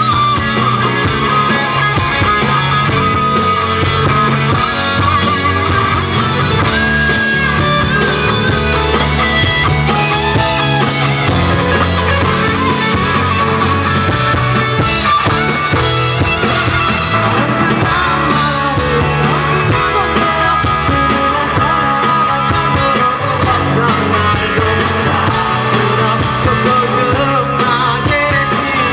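A live band playing a pop-rock song with singing, heard through concert loudspeakers and recorded from the audience. The music is steady and loud, with no breaks.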